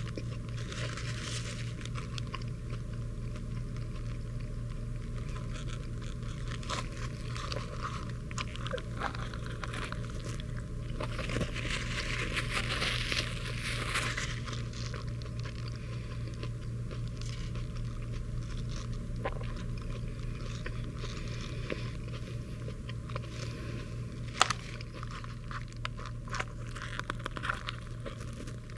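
A person chewing and biting into a cheeseburger, with wet mouth sounds and the crinkle of its paper wrapper, over a steady low hum.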